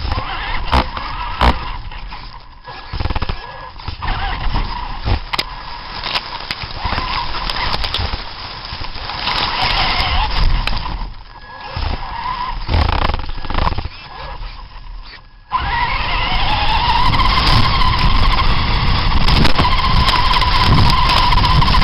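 Radio-controlled monster trucks driving, their motors running in short spells of throttle with quick drops between, then running continuously and louder from about three-quarters of the way through.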